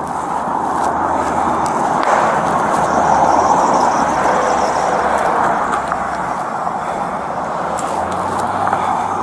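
Highway traffic rushing past, swelling as a tractor-trailer goes by about three to four seconds in and then easing off.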